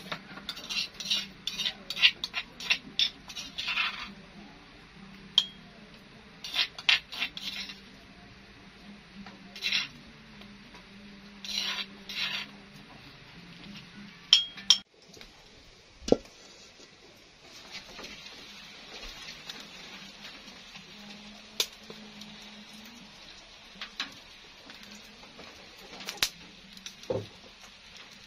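A metal spoon scraping and knocking inside a mortar, scooping out ground spice paste, with clinks on a ceramic plate. About halfway through, this gives way to a faint steady hiss with a few scattered ticks.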